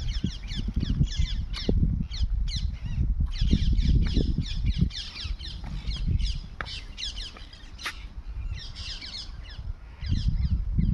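A chorus of small birds chirping and chattering, many quick, short calls that overlap, denser in the first half and again about nine seconds in. Underneath runs an uneven low rumble on the microphone.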